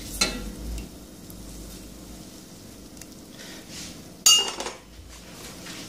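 A utensil knocks against a stainless steel pot: a soft knock just after the start and one sharp, ringing metal clink about four seconds in. Butter melting in the pot gives a faint sizzle underneath.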